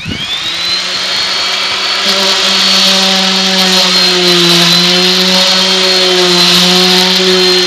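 Electric orbital palm sander switched on and spinning up in about half a second, then running steadily with a hum and a high whine, its pitch wavering slightly about halfway through.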